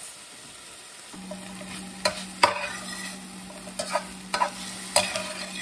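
Slotted metal spatula stirring and scraping green beans and onions in a stainless steel skillet, with about five sharp clanks against the pan over a soft, steady sizzle.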